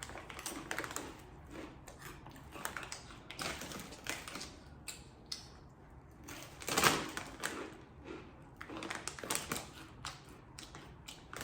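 Crunching of blue Takis rolled tortilla chips being chewed close to the microphone: irregular crisp crackles, loudest about seven seconds in.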